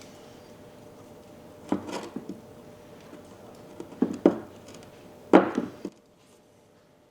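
Parts of a vintage hand plane being handled and set down on a workbench during disassembly: three short bouts of knocking and clatter, the last and loudest a little past five seconds in.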